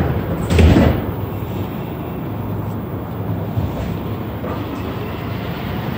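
Montreal Metro AZUR rubber-tyred train running between stations, heard from inside the car as a steady rumble. About half a second in there is one loud, short thump.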